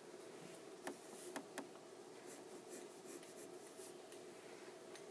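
Graphite pencil drawing short strokes on paper, faint and scratchy. A few light clicks come a little after a second in.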